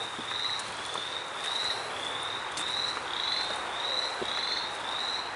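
A chorus of frogs calling: short, slightly rising high peeps about twice a second over the dense steady din of many more callers.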